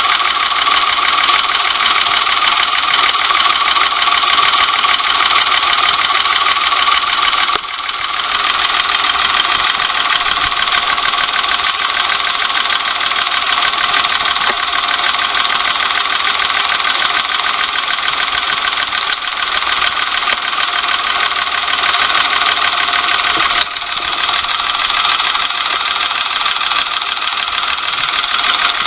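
Daihatsu S201P Hijet's 660 cc three-cylinder engine running steadily with an abnormal noise; the engine will not rev up freely. The sound dips suddenly twice, about a quarter of the way in and again near the end.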